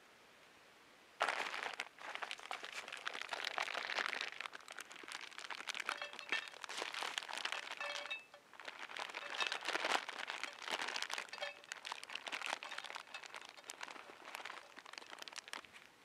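Plastic bag of dry pasta crinkling as it is handled and tipped, with the hard pasta pieces rattling and pouring into a steel pan. It starts suddenly about a second in and comes in uneven bursts of crisp crackles and clicks.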